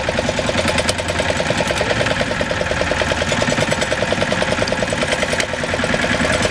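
A fishing boat's engine running steadily, with a fast, even chugging pulse.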